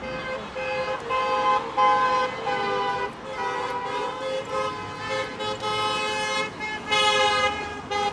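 Several car horns honking in long and short blasts at different pitches, overlapping one another, from vehicles passing the street rally.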